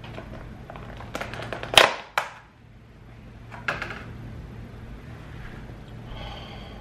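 Clear plastic clamshell food container being unsnapped and opened: a cluster of crackling plastic clicks about a second in, the loudest snap near two seconds, and one more click near four seconds.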